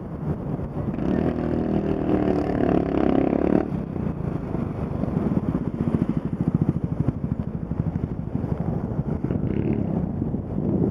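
Road traffic engines running close by. A pitched engine note comes in about a second in and cuts off suddenly near four seconds, followed by a rough, fast-pulsing low engine throb.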